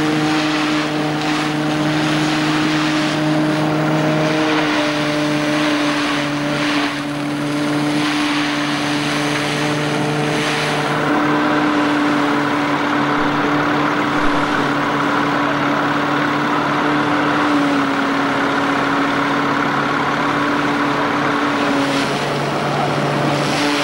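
Threshing mill driven by a vintage tractor, running steadily while threshing oats. It gives a continuous hum whose pitch shifts slightly a few times.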